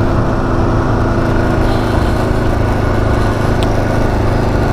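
Kawasaki Ninja 500's parallel-twin engine running steadily under way.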